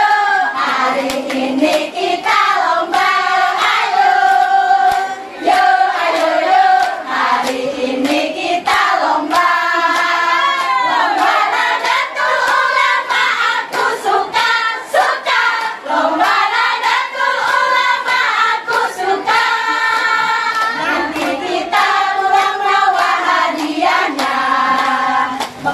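A women's qasidah group singing a song together in unison, with a steady beat of hand claps.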